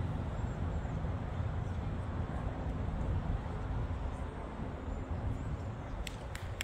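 Steady low outdoor rumble. A few sharp taps start near the end.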